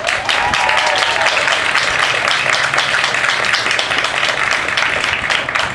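Crowd applauding, with a shout or whistle in the first second.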